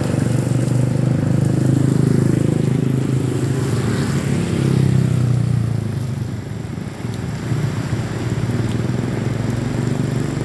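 Motorcycles riding past on a rain-soaked road, their engines loudest for the first six seconds and then easing off, over a steady hiss of rain and wet tyres.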